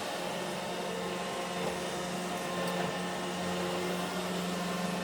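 iRobot Roomba E5 robot vacuum running steadily, its motor giving an even hum with a constant low tone.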